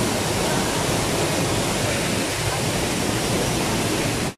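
Steady rush of a waterfall pouring into its plunge pool, cutting off suddenly near the end.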